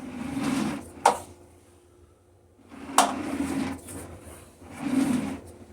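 Sewer inspection camera's push cable being pulled back and fed onto its reel: a series of rattling clunks, with sharp clicks about a second in and again near three seconds, recurring every couple of seconds.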